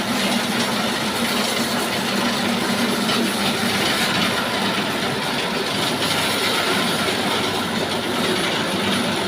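Sawmill running steadily while sawing timber, a continuous loud mechanical noise with a low hum that eases a moment in and comes back near the end.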